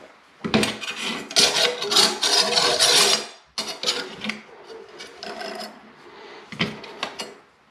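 A metal mounting bracket and a torpedo level scraping and rubbing against a tiled wall as they are positioned by hand. There is a dense scraping for about three seconds, then lighter rubs and a single knock near the end.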